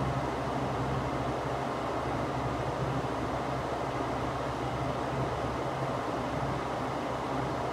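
Electric fan running steadily: a constant rush of air with a steady low hum underneath.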